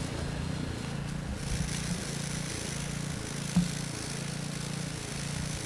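A small engine running with a steady low hum, with a single light knock about three and a half seconds in.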